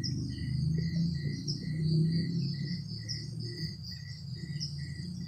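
Insects chirping in a steady rhythm of short high pulses, about two or three a second, over a low steady hum.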